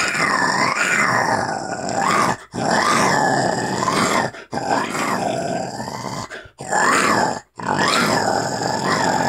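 A person growling in the throat, imitating an animal: a series of about five long growls, each a second or two, with short breaks for breath between them.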